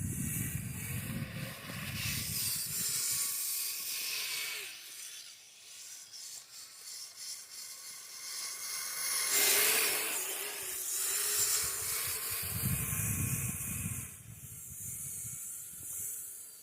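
Kyosho Blizzard RC snow vehicle's electric motor whining, rising and falling in pitch as it is throttled, with its tracks hissing through snow. A low rumble comes in near the start and again near the end.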